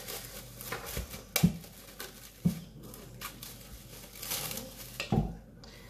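Plastic cling film crinkling and rustling as a ball of pastry dough is wrapped in it, with a few soft knocks on the counter.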